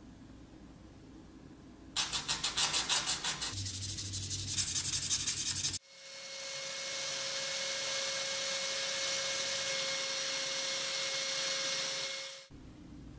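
A power drill spins a cotton buffing wheel against a small metal toy part to polish it: a steady motor whine with a hiss of the wheel. It comes up about six seconds in and winds down shortly before the end. Before it comes a louder, fast rhythmic scratching lasting a few seconds.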